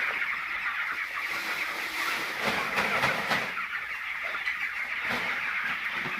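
A large flock of chickens making a steady din of clucking and peeping, with a few short knocks scattered through it.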